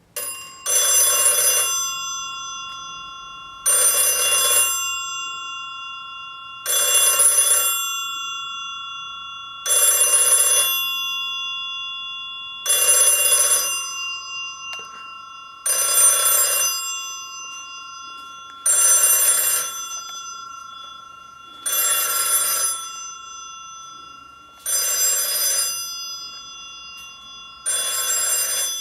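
Black Japanese telephone's bell ringing: rings of about a second repeating every three seconds, ten times, with two steady bell tones sounding on between the rings.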